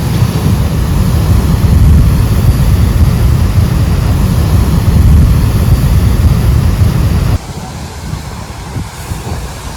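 Strong sea wind buffeting the microphone, a heavy low rumble, with surf from the ocean mixed in. About seven seconds in it drops suddenly to a quieter wind.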